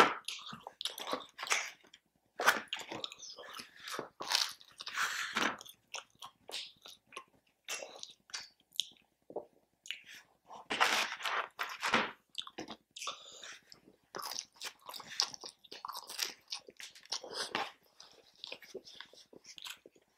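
A person chewing and biting into pizza, wings and breadsticks close to the microphone, in irregular crunchy bites throughout, mukbang-style.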